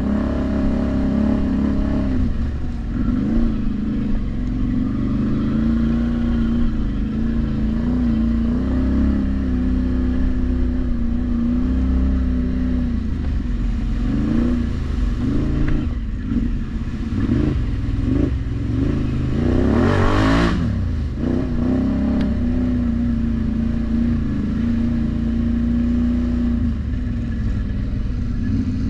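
An ATV engine running under way, its pitch rising and falling as the throttle changes. There is a brief louder rush about two-thirds of the way through.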